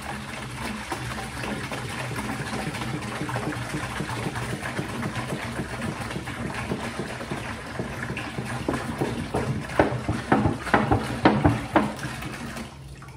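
Scuppernong grape juice pouring from a plastic gallon jug into a plastic bucket in a steady splashing stream. Over the last few seconds the stream turns uneven and splashy as the jug is tipped up and empties.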